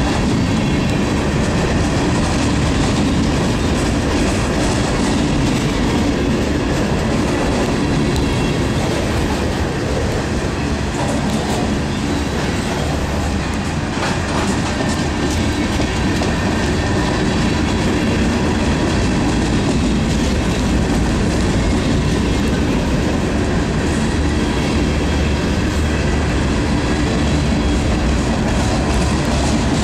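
Freight cars of a mixed manifest train rolling past at close range: a steady, loud rumble of steel wheels on the rails.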